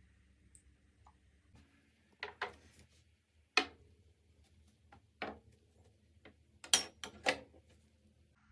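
Several sharp clicks and clacks of small plastic toy coffee-machine parts being handled and set down, spaced irregularly, the loudest about three and a half and near seven seconds in.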